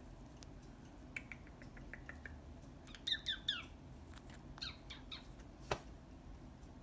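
Green-cheeked conure making short chirping calls that fall in pitch, in two brief bursts about three and five seconds in, after a quick run of soft ticks. A single sharp tap comes near the end.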